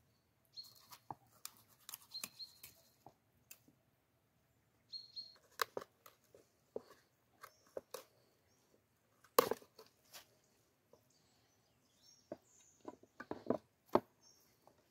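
Knife cleaning and cutting a whole fish on a wooden plate: irregular scrapes and knocks of the blade against the fish and the wood, the loudest about nine seconds in.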